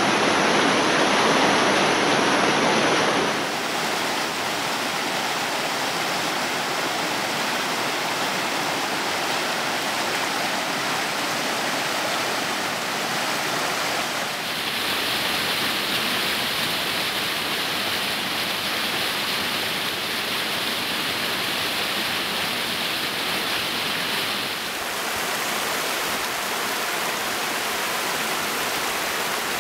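Rushing water of a small mountain brook cascading over rocks and through little falls: a steady hiss that changes abruptly in tone and strength three times.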